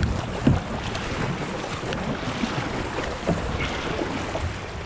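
Kayak paddle blades dipping and pulling through the water in fast strokes, with splashing and water rushing along the plastic hull, and a few light knocks.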